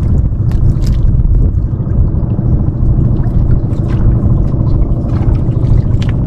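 Outrigger fishing boat's engine running steadily: a loud, low drone, with a few short sharp noises on top as a skipjack tuna is hauled in over the bow.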